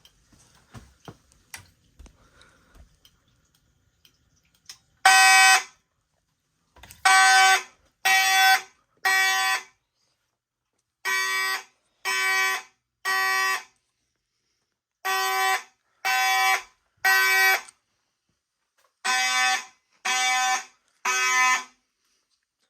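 Fire alarm horns sounding in the temporal code-3 evacuation pattern. After a few faint clicks, one lone blast comes about five seconds in, then three-blast groups, each blast about half a second long and a second apart, with a pause between groups.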